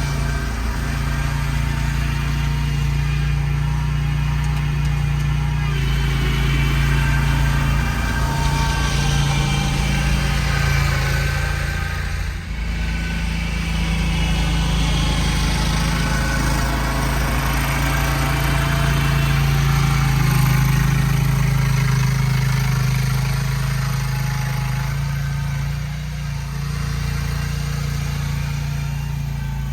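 Mini snowcat's engine running steadily while it is driven on its tracks, with a brief dip about twelve seconds in.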